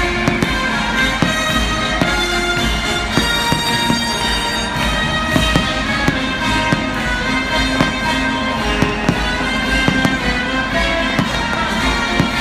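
Fireworks bursting overhead, a string of irregular bangs and crackles over loud music from the stadium sound system.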